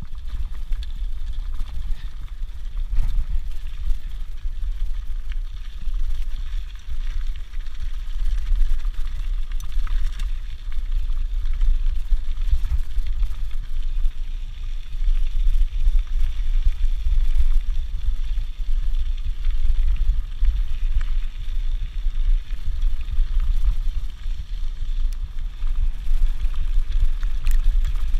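A mountain bike rolling down a gravel track, with tyres crunching and occasional rattles and clicks from the bike. Steady wind rumble on the action camera's microphone runs underneath.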